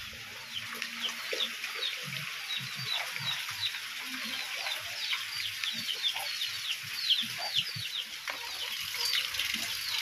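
Chicks peeping over and over in short, falling chirps, with a few low clucks from hens, over the steady hiss of heavy rain.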